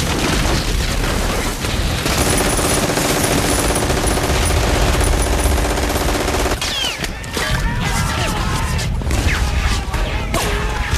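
War-film battle sound: dense gunfire and explosions, with a steady droning tone for a few seconds in the middle. From about two-thirds of the way through, the firing comes with a scatter of short, high, gliding squeals.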